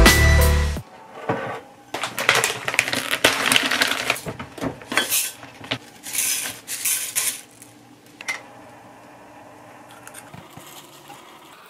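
Dry cornflakes poured into a glass mug, a dense crackling patter of flakes hitting the glass and each other with small clinks, lasting about six seconds, after a piano music outro cuts off within the first second. Then it goes quiet apart from a single click about eight seconds in.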